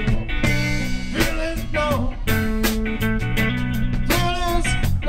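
Live blues band playing: electric guitars, bass guitar and drum kit. A lead line of bent notes slides down in pitch twice, at about two seconds and near the end.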